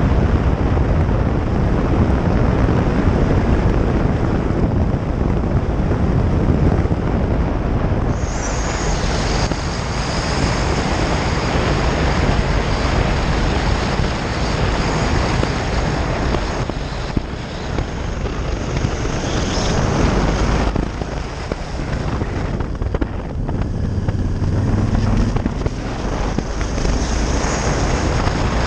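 Honda Varadero motorcycle being ridden along a gravel road: a steady rush of wind on the microphone over the running engine, swelling and dipping in loudness.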